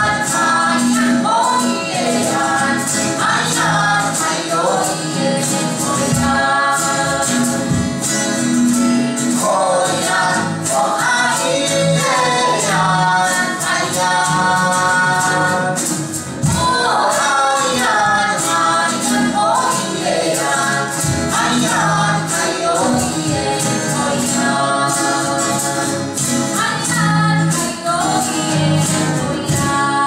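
A man and a woman singing a Taiwanese Indigenous folk-style song together in harmony, accompanied by a strummed acoustic guitar, with a hand shaker ticking out a steady beat.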